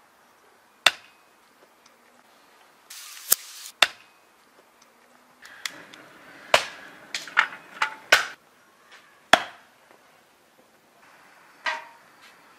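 Hatchet chopping a small log into kindling: a string of sharp, separate strikes, a few spaced out at first, then a quick cluster of several in a row. Near the end comes a single knock with a short ring to it.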